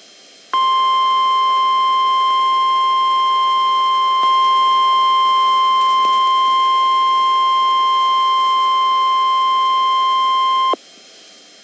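NOAA Weather Radio's 1050 Hz warning alarm tone: one steady, piercing tone that starts about half a second in, holds for about ten seconds and cuts off sharply. It signals that an emergency alert broadcast is about to be read, here a severe thunderstorm watch.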